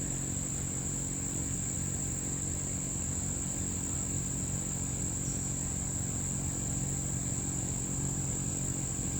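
Crickets chirring in a steady, continuous high trill over a low, steady hum.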